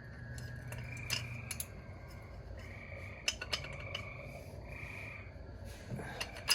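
Scattered sharp metal clinks and knocks of a wrench with a cheater bar on the truck's thermostat housing bolts. Behind them runs a steady chirping chorus that comes and goes in stretches of about a second.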